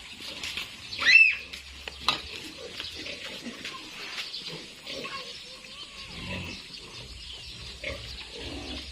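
A piglet squealing: one loud, high call about a second in, another shorter one near the end, with scattered knocks and shuffling in between.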